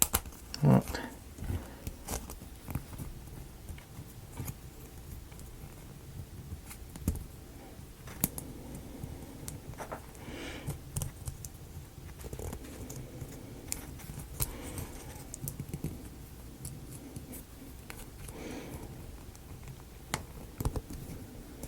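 Scattered light clicks and taps of wooden kit pieces being handled and fitted together.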